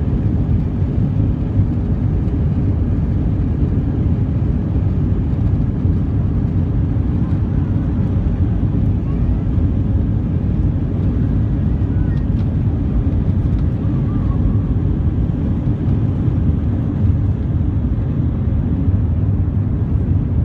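Jet airliner's engines at takeoff power during the takeoff roll, heard from inside the cabin as a loud, steady low rumble.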